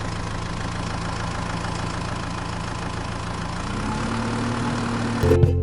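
Engine idling steadily with a low hum, its pitch stepping up slightly over halfway through. Plucked-string music cuts in just before the end.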